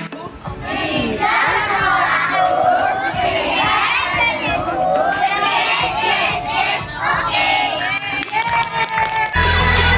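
A crowd of young children shouting and cheering together, many voices at once. Pop music comes back near the end.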